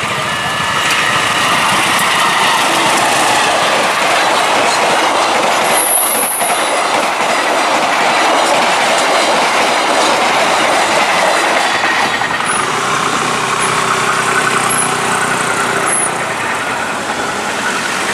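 Train passing over a level crossing: a loud, steady rumble and rattle of wheels on the rails, with a brief high squeal about six seconds in, easing off near the end.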